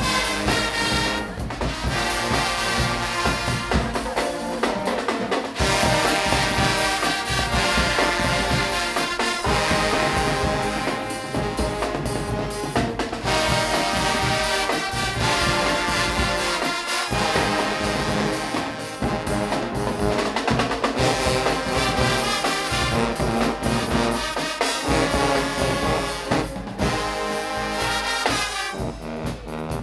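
A Guggenmusik band playing: loud brass (trumpets and trombones) over drums and percussion with a steady beat.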